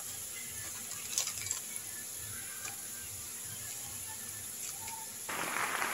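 A few faint clicks, then near the end a steady sizzle starts suddenly as the ground pork fries in the wok.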